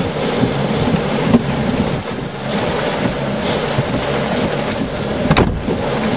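Strong wind and heavy rain beating on a car's windshield and body, with a windshield wiper sweeping and a low steady hum underneath. A single sharp knock comes about five seconds in.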